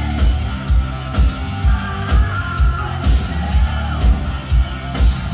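Glam metal band playing live: electric guitar, bass and drums with a steady kick-drum beat about twice a second, and a singer's voice over the top.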